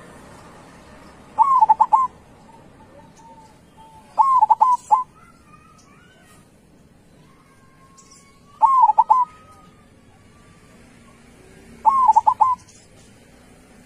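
Zebra dove (perkutut) cooing: four short phrases of quick, rolling coos, about three to four seconds apart.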